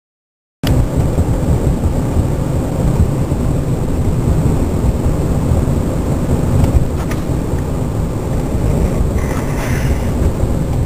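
Car driving in strong wind: a steady, heavy low rumble of road and wind noise that starts abruptly about half a second in.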